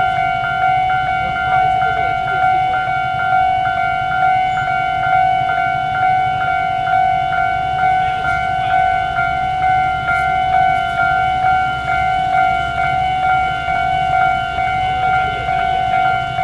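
A loud, continuous tone held at one pitch, with overtones, over a low rumble that pulses in loudness a little more than once a second.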